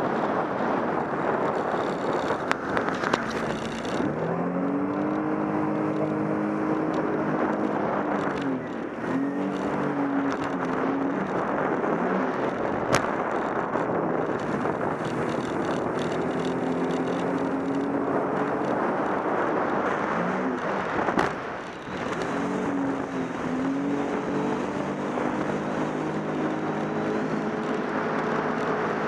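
Sea-Doo RXP-X personal watercraft's supercharged four-stroke engine running hard, its pitch repeatedly rising and falling as the craft crosses boat wakes, over a steady hiss of spray and wind. About 21 seconds in the sound drops briefly, then the engine picks up again.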